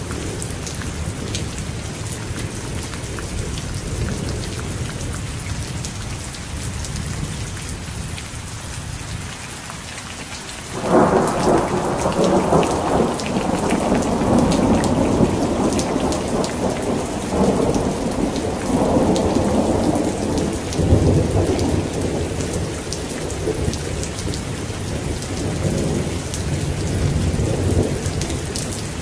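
Thunderstorm: heavy rain falling steadily. About a third of the way in, a loud clap of thunder breaks suddenly and rumbles on, swelling and fading in waves.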